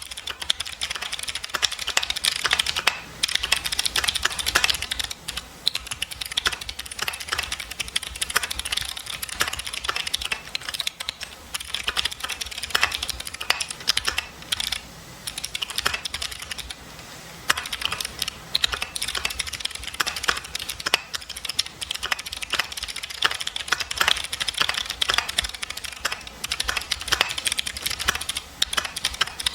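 Mechanical keyboard with jade switches being typed on fast and steadily, a dense clickety-clack of key presses with a few brief pauses.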